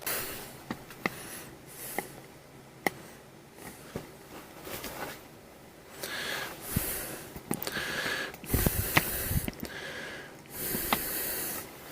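A person breathing heavily near the microphone: three loud rushes of breath about two seconds apart in the second half, among small clicks and knocks of handling.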